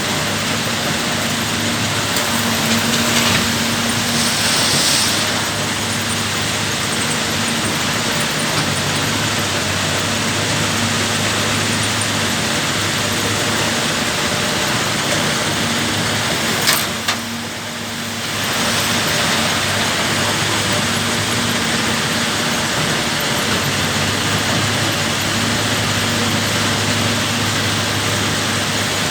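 Cat 320 GC excavator's diesel engine running steadily under an even hiss, with a sharp click and a brief drop in level about seventeen seconds in.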